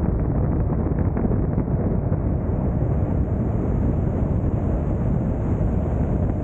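Steady wind and road noise of a car cruising on a freeway.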